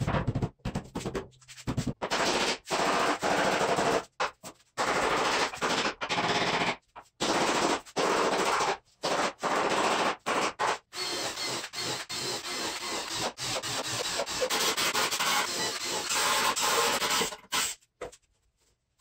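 Power tools working plywood: a string of short, loud bursts of tool noise, each cut off abruptly. Around the middle the noise becomes a longer, steadier stretch, and it stops about a second before the end.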